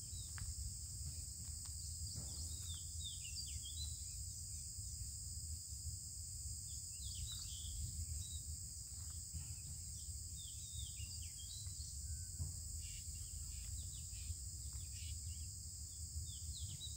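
Steady high chorus of crickets or other insects, with many short, falling bird chirps coming and going over a low steady rumble.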